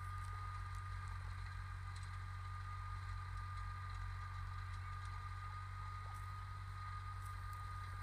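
A steady low mechanical drone, with a thin steady high tone above it and a few faint ticks.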